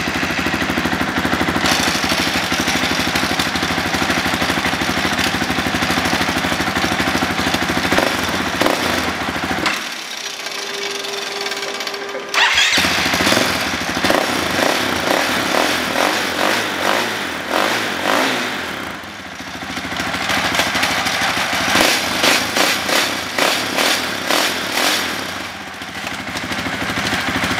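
Dirt bike engine running with the rear wheel spinning on a stand. It runs steadily at first, then turns louder and uneven about twelve seconds in, with rapid pulses through most of the rest.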